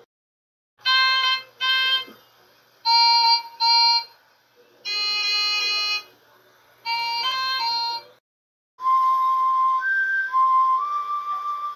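Music with a reedy, harmonica-like tone playing short phrases of a few notes, with silent gaps between them. About nine seconds in, a continuous whistle-like melody of held notes begins.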